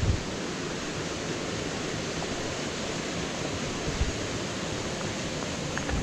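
Steady rushing of a nearby waterfall and its stream, with a few low thumps near the start, about four seconds in and near the end.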